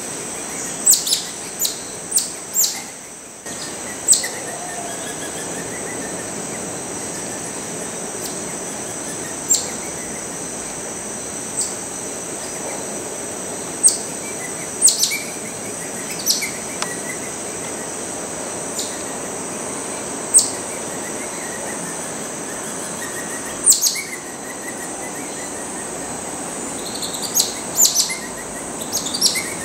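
Geoffroy's tamarins giving short, high-pitched chirps, some single and some in quick runs of two or three, over a steady high insect drone.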